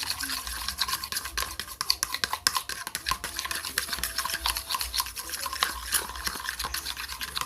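Thick slime mixture of glue, talc and paint being stirred in a container, a fast irregular run of scraping clicks.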